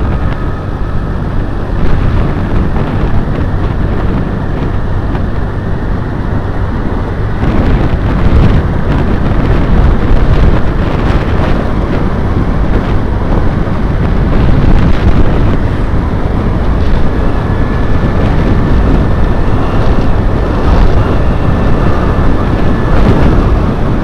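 Heavy wind buffeting on the microphone over the steady rumble of a vehicle moving along the road.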